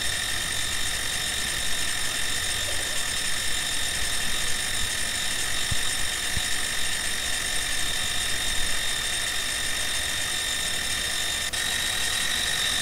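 CNC-converted benchtop milling machine's 3/8-inch end mill cutting metal at about 3,100 RPM with a 1/10-inch depth of cut: a steady high machining whine that shifts slightly near the end, the sound of a heavy roughing pass.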